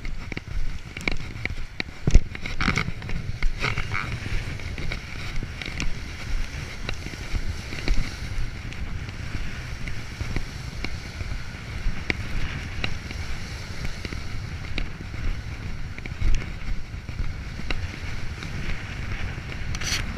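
Wind buffeting the microphone with a low rumble, over Lake Ontario waves washing and splashing against the breakwall's boulders. Scattered short scuffs of footsteps on concrete come through now and then.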